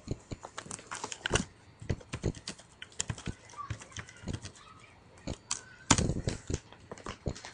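Computer keyboard keys clicking irregularly as text is typed, with a louder cluster of keystrokes about six seconds in.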